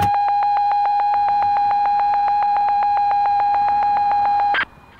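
Electronic beep tone at one steady pitch, pulsing rapidly at about eight beeps a second like an alarm clock, then cutting off suddenly near the end.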